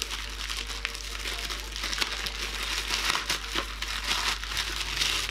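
Grey plastic mailer bag crinkling and rustling as hands work it open and pull a boxed item out, with scattered sharp crackles.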